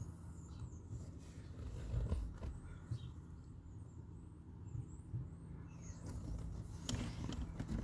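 Faint handling noise, with soft knocks and rustling, plus a burst of clicks near the end, as parts are moved about in a car footwell. Now and then a faint bird chirps.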